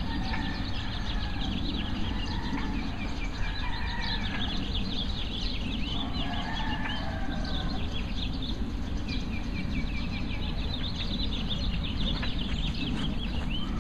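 Many birds chirping and calling in quick, short notes, over a steady low rumble.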